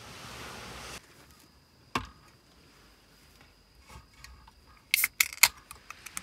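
An aluminium Tsingtao beer can being opened: a single knock about two seconds in, then, about five seconds in, the loud sharp crack and short hiss of the pull tab breaking the seal.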